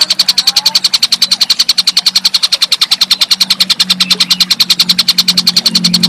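Tengkek buto call as used in a song-training recording: a rapid, even rattle of sharp high notes, about ten a second, over a low steady hum.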